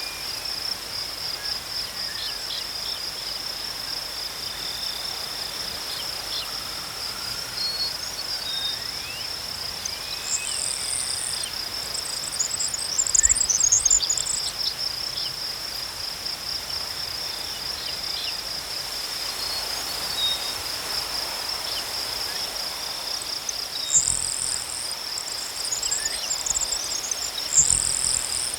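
Grass insects stridulating in a steady, high, rapidly pulsing trill. A small bird twitters high song in two spells, about ten seconds in and again near the end, and brief low wind rumbles come with them.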